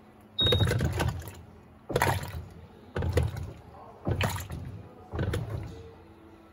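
Electrolux Turbo Compacta 7 kg top-loading washing machine agitating a load of rugs in a shallow fill of water. Five surges of churning, sloshing water come about once a second, each starting sharply and fading.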